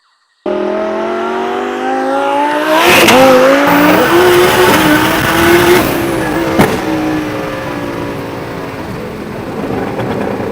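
Twin-turbo Lamborghini Huracán V10 revving hard: the engine cuts in suddenly, climbs in pitch over the first couple of seconds, holds high, then eases off. A single sharp crack sounds about six and a half seconds in.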